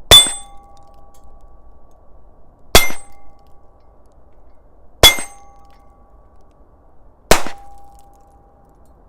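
Heritage Barkeep single-action .22 revolver firing .22 Magnum rounds: four sharp shots about two and a half seconds apart. Each shot is followed by a short ringing tone.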